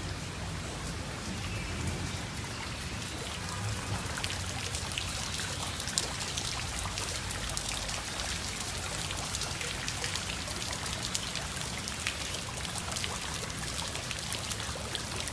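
Rain falling steadily, with many sharp ticks of drops striking surfaces close by.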